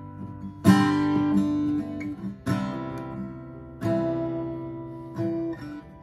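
Acoustic guitar strummed in four slow chords, each left ringing and fading before the next, with a few lighter plucked notes between.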